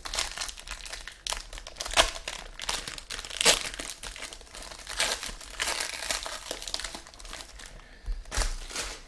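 Plastic wrapper of a trading card pack crinkling in a dense run of irregular crackles and rustles as it is handled and opened.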